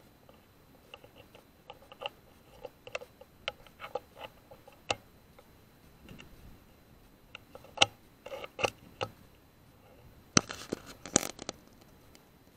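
Irregular small clicks and taps in scattered runs, with a quicker cluster of sharper clicks near the end.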